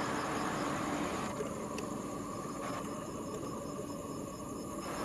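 Crickets chirping in a steady rhythm of a few high chirps a second, over a steady background hiss.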